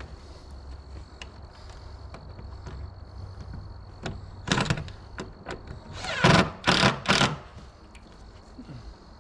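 A cordless drill or driver run in three short bursts, about four and a half, six and a half and seven seconds in, driving screws into roof rafters, with scattered light knocks of timber and tools between.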